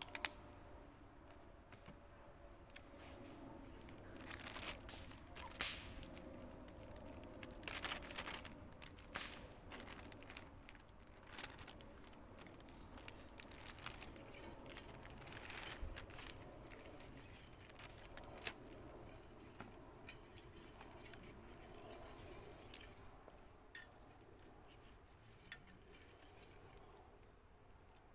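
Faint, scattered rustling and crinkling with light clicks and knocks from things being handled by hand, busiest in the first half.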